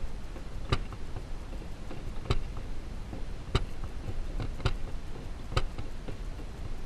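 BIX punch-down tool, set to its non-cutting mode, snapping as it seats wires into a BIX connector block: about six sharp clicks at irregular intervals, one per punch.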